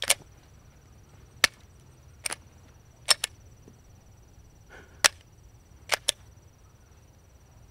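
Glock 43X pistol being worked by hand: about eight sharp metallic clacks, a few in quick pairs, as the slide is racked on a mud-fouled gun with a live round stuck in the chamber that will neither chamber nor extract.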